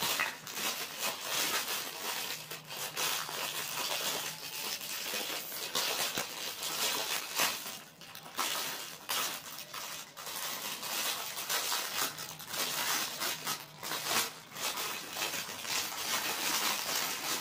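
Thin clear plastic wrapping crinkling and rustling in continuous irregular crackles as it is handled and torn open by hand.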